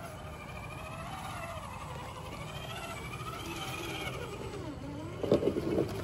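Traxxas TRX-4 Tactical Unit RC rock crawler's electric motor and gear drivetrain whining, the pitch rising and falling with the throttle as it crawls. Near the end come loud rattling knocks and scrapes as the truck works over the rock.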